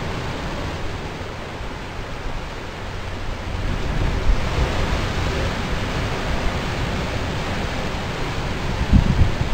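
Surf breaking and washing over lava rocks: a steady rush of sea noise that eases for a couple of seconds and swells again about four seconds in. A few low wind thumps on the microphone come near the end.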